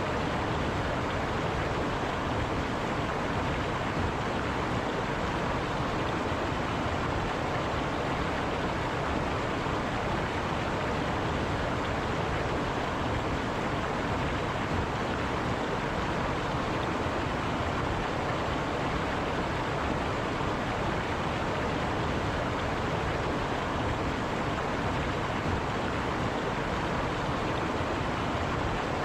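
River water flowing over rocks, a steady even rushing.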